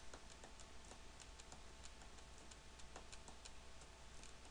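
Near silence: faint room tone with a low hum and light, irregular ticking, several ticks a second.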